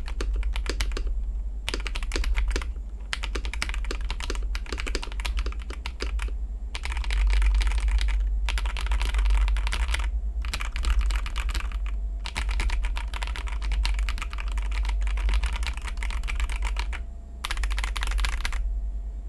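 Typing on a KBD67 Lite R2 mechanical keyboard with AKKO CS Radiant Red linear switches and AKKO Cherry-profile keycaps: fast runs of key clacks in bursts, broken by short pauses, over a steady low hum.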